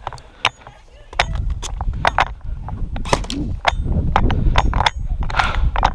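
Airsoft guns firing: irregular sharp snaps of single shots, at times several a second. A heavy low rumble on the microphone sets in about a second in.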